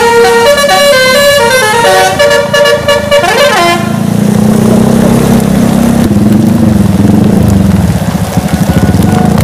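Bus's multi-tone musical air horn (telolet) playing a quick stepped melody that ends in a sliding sweep about three and a half seconds in. Then the horn stops and a vehicle engine's low rumble carries on.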